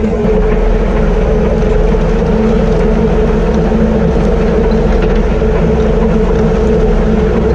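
Grimme potato harvester running in the field behind its tractor: a loud, steady mechanical drone with a constant hum.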